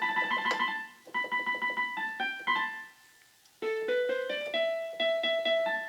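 Casio Casiotone keyboard playing quick pitched notes through computer speakers, with a short pause about three seconds in before a rising run and repeated notes.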